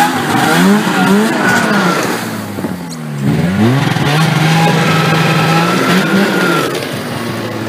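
Snowmobile engine revving up and down as the sled is ridden off. The pitch climbs and drops several times, with a steady stretch in the middle.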